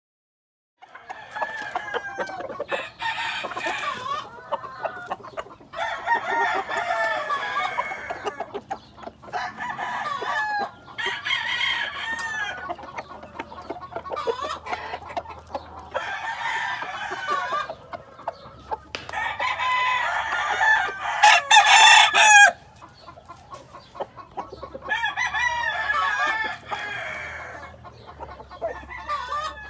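Roosters crowing again and again, several drawn-out crows following and overlapping one another, starting just under a second in; the loudest crow comes about three-quarters of the way through.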